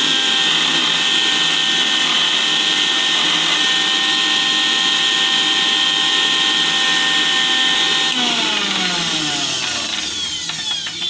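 Electric mixer grinder running at full speed with a steady high whine, whipping chilled homemade cream in its steel jar. About eight seconds in it is switched off and winds down, the whine falling in pitch as the blades slow.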